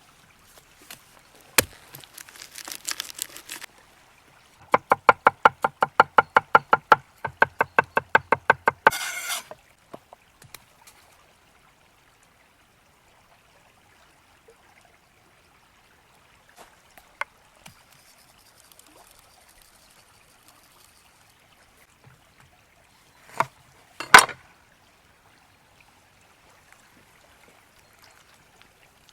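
Rapid, even knife chopping on a wooden board, about five strokes a second in two runs of a few seconds, with scattered clinks and knocks of utensils before and after.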